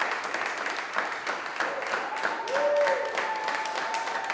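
A group of people clapping their hands, many irregular claps together, with a voice calling out and a long held tone about two seconds in.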